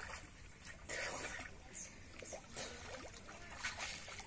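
Pond water splashing and trickling around a person moving in chest-deep water, in a few short splashes about a second apart.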